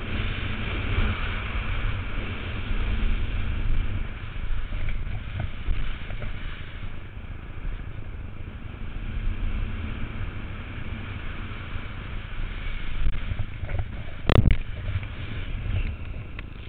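Wind rushing over a GoPro camera's microphone and a snowboard sliding and scraping over packed snow as the rider descends, louder in the first half and easing off after about seven seconds. A single sharp knock comes about fourteen seconds in.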